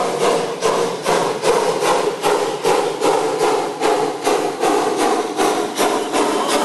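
Narrow gauge steam locomotive working, its exhaust beating evenly at about three beats a second.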